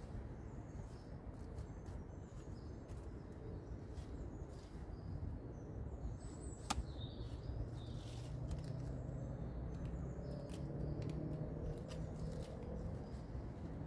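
Wild garlic (ramsons) stems being picked by hand, a string of short crisp snaps with one sharper crack about two-thirds of the way through, over a low steady rumble. Small birds chirp faintly now and then.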